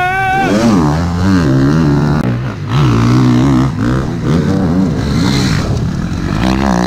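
Enduro motorcycle engines revving hard. At first the pitch is held high and steady while a bike is in the air over a jump, then it falls about half a second in. After that the pitch climbs and drops again and again with throttle and gear changes, one bike after another.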